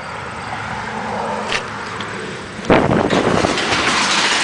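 New sectional overhead garage door rolling up its tracks, pulled up hard by its brand-new overhead torsion spring. The rolling noise builds, then gets suddenly much louder a little under three seconds in.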